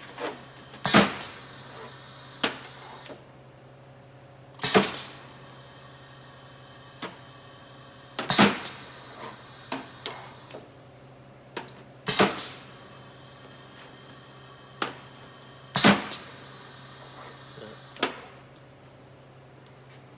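Pneumatic tabletop piston filler cycling about every four seconds, each cycle a short loud burst of air and valve clacks as the piston draws and dispenses hot sauce. Between cycles come sharp small knocks of glass bottles being set under the fill nozzle and taken away.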